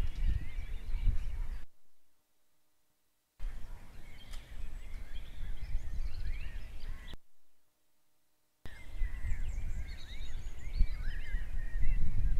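Wind rumbling on the microphone under many short chirps and whistles of birds calling. The sound cuts out completely twice, for about a second and a half each time.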